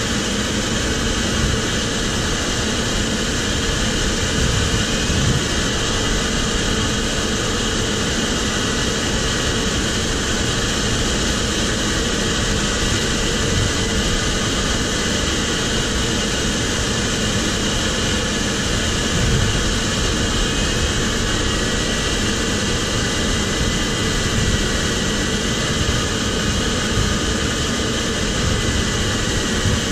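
Steady rush of air over the canopy of an ultralight sailplane in gliding flight, heard from inside the cockpit.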